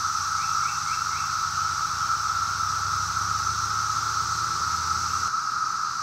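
Dense chorus of 17-year periodical cicadas: a steady, unbroken droning hum. Four faint quick chirps come through it in the first second.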